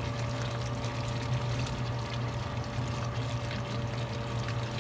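Chopped carrots sliding out of a ceramic bowl into a stainless steel pan of chicken in tomato sauce, with a few soft knocks and a wet pouring sound, over a steady low hum.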